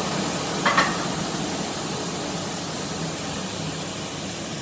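Bench grinder coasting down after being switched off: a steady whir and hiss that slowly fades. A brief scrape-like noise comes about three-quarters of a second in.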